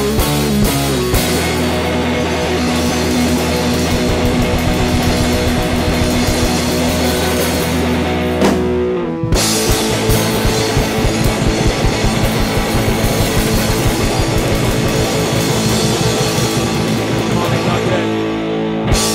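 Loud guitar-driven rock music, with a short break about nine seconds in before the band comes back in, stopping near the end.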